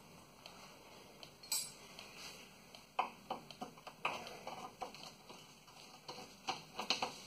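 Hand tools giving scattered light metallic clicks and clinks, a few sharper taps about three seconds in and near the end.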